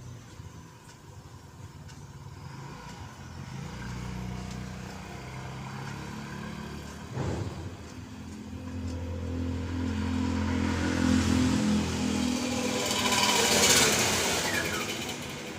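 A motor vehicle's engine running and getting louder over several seconds, with a short knock partway through and a hissing swell that is loudest near the end, as of a vehicle passing close.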